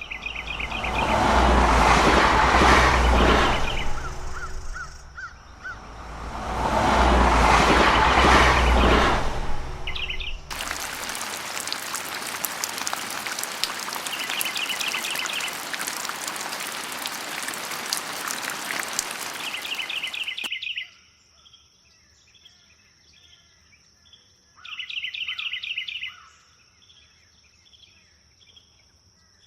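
An edited sound collage. First come two long swelling rushes of noise with a low rumble, then a steady hiss like an untuned radio. About two-thirds through the hiss cuts off suddenly, leaving quiet repeated bird chirps over a thin, steady high whine.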